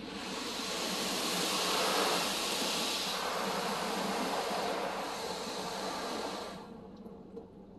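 Touchless car wash's high-pressure water jets spraying over the car, heard from inside the cabin as a steady hiss that swells over the first two seconds, holds, then fades out near the end as the spray passes on.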